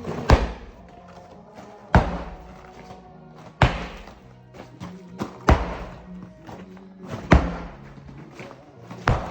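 Six heavy sledgehammer blows, about one every two seconds, each a sharp crack with a short ring-out, striking material in place of a rotary hammer's chiselling. Background music with steady low tones runs underneath.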